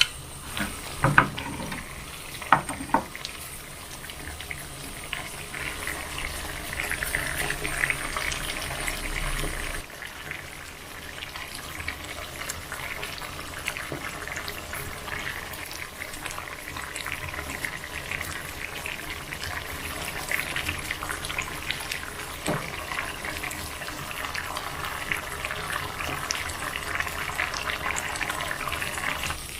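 Food cooking on the stove: a steady sizzling hiss with many small crackles, after a few sharp clicks of utensils in the first three seconds.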